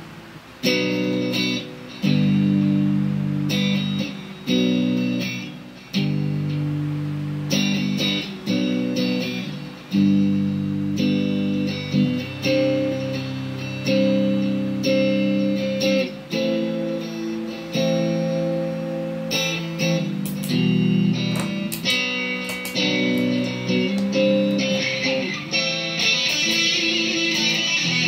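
Electric guitar, a Squier Bullet Stratocaster through an overdriven Marshall Silver Jubilee amp with Greenback speakers, chords struck every second or two and left to ring and fade. Near the end a denser, fizzy layer of treble comes in over the notes.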